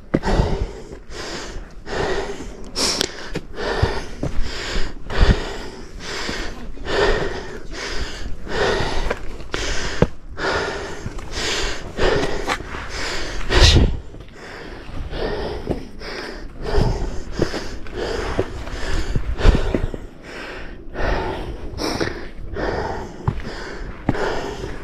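A man's heavy, rhythmic breathing as he climbs steep stone steps, about one breath sound every second or less: panting from the exertion of the climb.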